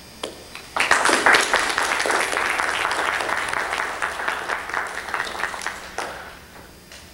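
Audience applauding: a couple of lone claps, then applause breaks out about a second in and dies away about six seconds in.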